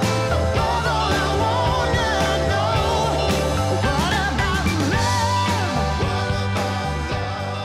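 Background music: a song with a sung vocal over a steady bass line, beginning to fade near the end.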